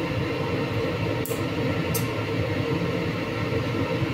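A steady machine-like hum fills the room throughout. Over it come two short, crisp snips, about a second and two seconds in: kitchen scissors cutting through a large fish.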